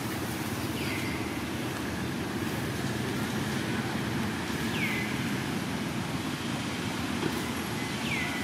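Steady low outdoor rumble, with three short high chirps that fall in pitch, spaced a few seconds apart.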